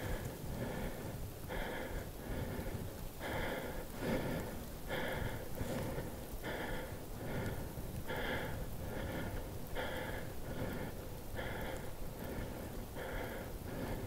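A person breathing hard and fast close to the microphone: quick paired in-and-out breaths, about one pair every second and a half.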